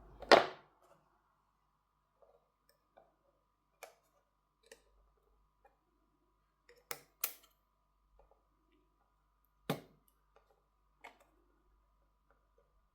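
Scattered light clicks and taps of small repair tools and parts on an opened smartphone as its internal boards and cables are prised loose: about seven isolated clicks, the loudest just after the start, a close pair about seven seconds in and one near ten seconds. A faint steady high hum runs underneath.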